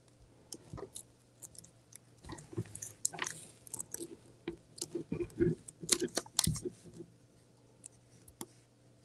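Poly burlap mesh crinkling and rustling as a petal is handled and fastened to a plastic canvas cross form, with scattered sharp plastic clicks. The crackling starts about two seconds in and dies away about seven seconds in.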